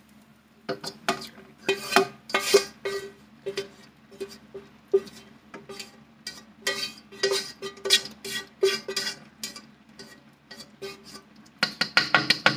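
A spoon scraping and knocking against a metal pan, irregular taps and scrapes each with a short metallic ring, as cooked onions are scraped out of the pan into a pot.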